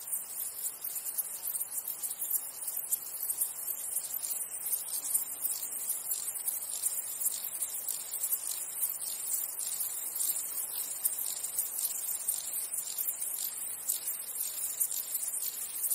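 Steady high-pitched chorus of chirping insects, a dense, rapid trilling that runs on unbroken.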